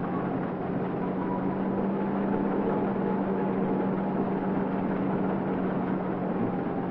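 Self-propelled combine harvester running steadily in the field: a continuous machine drone over a steady low hum.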